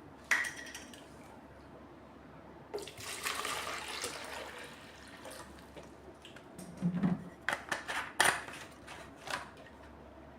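Water poured into the HHO generator's bottle of potassium hydroxide solution, splashing for about two seconds, followed by several sharp clicks and knocks of the bottle and fittings being handled.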